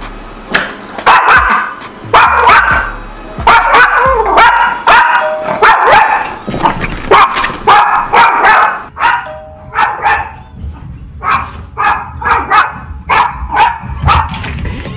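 Yorkshire terrier barking over and over: a long run of short barks at about two a second, with background music underneath.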